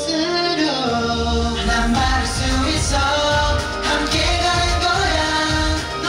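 Upbeat K-pop dance track with a boy group's sung vocals over a steady beat; the bass fills out about a second in.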